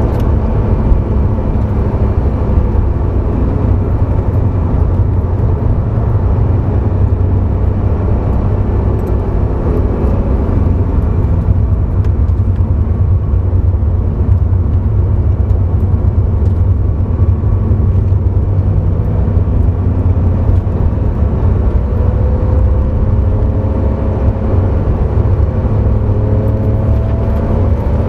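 Porsche sports car engine running hard on a race track, heard from inside the cabin under a heavy rumble of road and wind noise. The engine pitch rises steadily over the last several seconds as the car accelerates.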